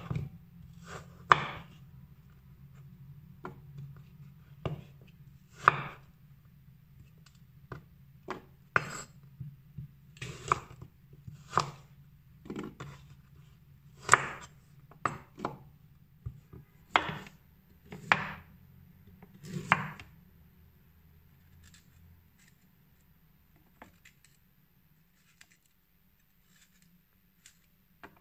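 Chef's knife cutting apples into wedges on a wooden cutting board: irregular sharp knocks of the blade striking the board, about one a second, for the first twenty seconds. After that come only faint scattered ticks and scrapes as a beetroot is peeled with the knife. A faint steady low hum runs underneath.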